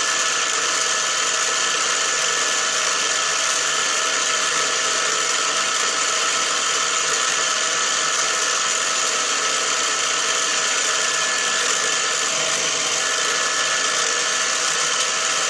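Milling-drilling machine running steadily, its spindle turning, with a constant machine whine.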